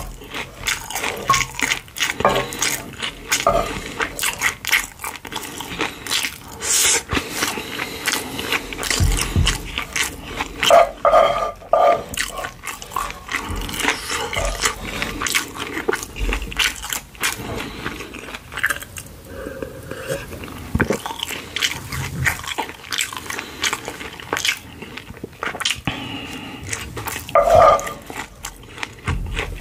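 Close-miked chewing of kimchi pork-belly fried rice, a dense run of short clicks and wet mouth noises, with a wooden spoon scraping the pan as it scoops more mouthfuls.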